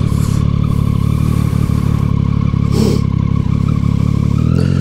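Triumph motorcycle engine running at steady, low revs while the bike rolls slowly through a leaned-over turn.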